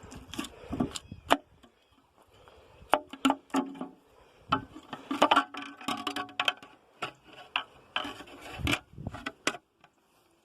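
Irregular clicks and clunks of hand tools and engine parts being handled during an engine teardown, some with a short metallic ring, with quiet gaps between.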